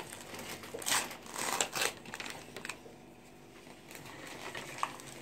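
Paper towel rustling and crinkling as a crumbly baked cornstarch brick wrapped in it is handled and broken, with scratchy bursts about a second in and a few light clicks later.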